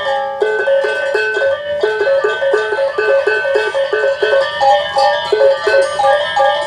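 Janger gamelan music amplified through a PA system: fast, evenly repeated metallophone-like notes over a held higher tone.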